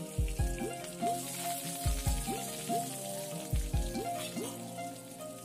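Chopped onion and curry leaves sizzling as they fry in hot oil in a pan, stirred with a wooden spatula near the end, at the sautéing stage of a tempering. Background music runs underneath, with three low beats.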